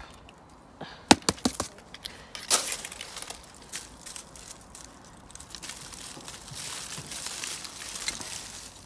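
Orange plastic plant pot being handled and knocked over soil: a quick cluster of sharp knocks about a second in and a louder knock a second later, then a stretch of rustling and scraping of compost and handling.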